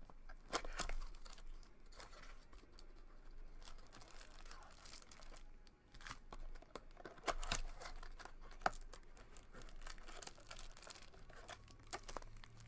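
Trading-card packaging being torn open and crinkled, with irregular crackles and sharp clicks.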